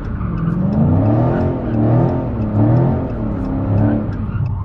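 Dodge Challenger Scat Pack's 392 Hemi V8, heard from inside the cabin, revving up and dropping back several times as the throttle is feathered through a donut with traction control off.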